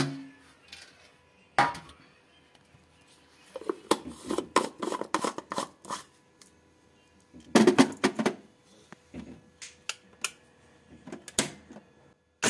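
Plastic clicks and rattling as a blender's dry-grinding jar is handled: crisp dried tomato slices go into the jar, the blade base is fitted, and the jar is set onto the motor base. The sounds come in scattered clicks and short bursts of clatter with quiet gaps between them.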